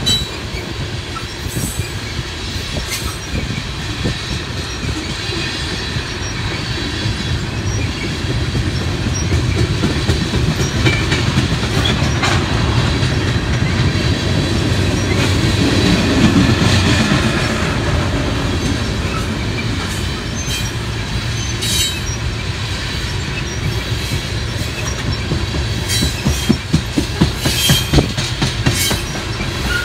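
Loaded coal train's hopper cars rolling past: a steady rumble of steel wheels on rail with a run of clicks, louder a little past halfway. Several sharp clicks come close together near the end.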